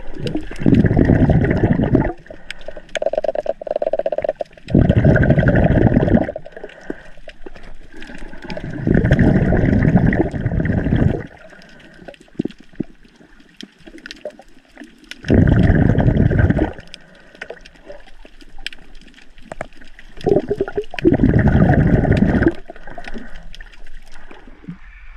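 Water heard underwater around a swimming snorkeler: surges of rushing, gurgling water every four to five seconds, with faint crackling in between.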